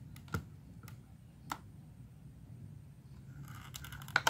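Handling clicks: two isolated sharp clicks in the first half, then a quick cluster of louder clicks and rattles near the end, over a low steady background hum.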